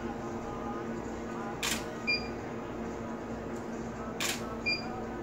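Camera shutter fired twice, about two and a half seconds apart, each shot followed a moment later by a short high beep, typical of a studio strobe signalling it has recycled and is ready to fire again. A steady low hum runs underneath.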